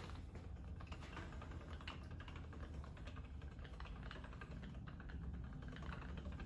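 Faint run of small, quick clicks and taps from hands handling gear, with one sharper click at the start.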